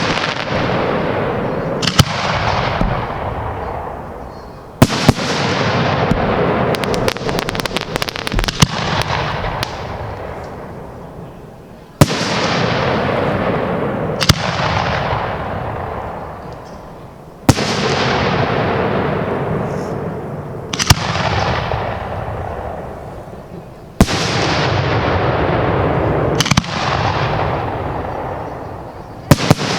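Aerial fireworks going off, a sharp bang every few seconds. Each bang trails off in a hissing, crackling tail that fades over a few seconds, with a quick run of small pops after one of them.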